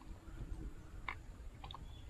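Scattered small clicks and taps over a low rumble, from live freshwater prawns and fish stirring in shallow water in the catch container.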